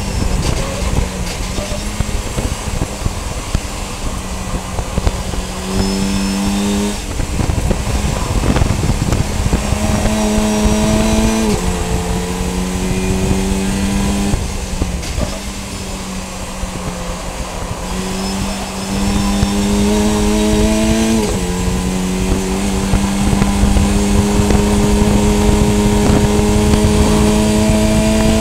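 VW Fun Cup race car's engine under load, heard onboard. Its pitch climbs slowly through each gear and drops sharply at upshifts about 11 and 21 seconds in and again at the very end, with a brief jump up in pitch about 6 seconds in. Heavy road and wind rumble runs underneath.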